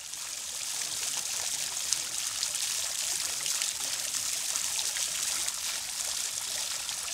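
Water from a stone garden fountain splashing and trickling over the rim of its basin, a steady hiss with small drips and splashes, fading in over the first second.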